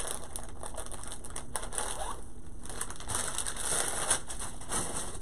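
Rustling and crinkling of craft supplies being handled and rummaged through, with a light knock about four seconds in.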